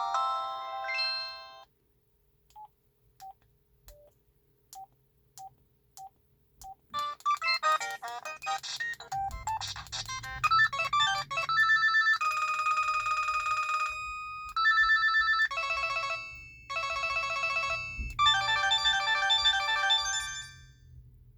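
An LG VX4500 cell phone playing ringtones through its small speaker. One melody ends about a second and a half in, a series of short, evenly spaced beeps follows, and a new electronic ringtone melody with some held notes starts about seven seconds in.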